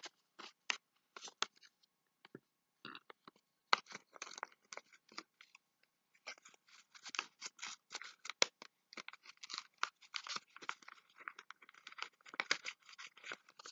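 Thin paper rustling and crinkling as it is folded and creased into an origami box, in short irregular scrapes with a brief pause about six seconds in.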